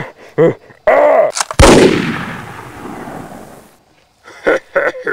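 A single loud gunshot about one and a half seconds in, ringing on and fading over about two seconds. Short rising-and-falling vocal calls come before and after it.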